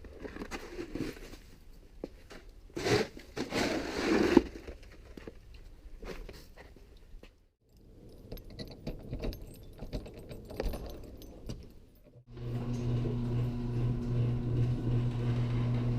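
Handling noise, jangling and scraping, loudest about three to four seconds in. After a break about twelve seconds in, a steady low hum begins.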